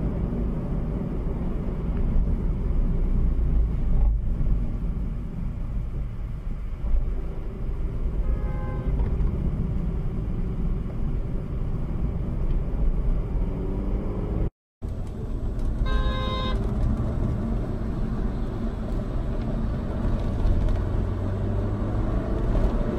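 Steady low engine and road rumble of a car, heard from inside its cabin, with a car horn sounding twice: a faint short toot about eight seconds in and a louder blast of under a second around sixteen seconds in. The sound cuts out for a moment just before the second horn, and near the end an engine note rises as a car speeds up.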